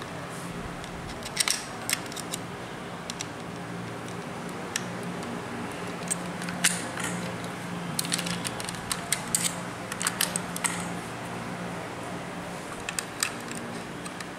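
Scattered light metallic clicks and rattles from handling a pole saw's bar and chain while its chain tension is adjusted with a screwdriver, most frequent in the second half, over a steady low hum.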